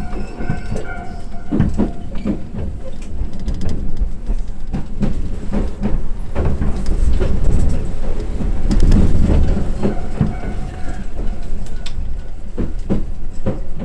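An Iyo Railway train running along the track: a steady low rumble with the wheels clicking and knocking over rail joints, and a faint steady whine from the running gear.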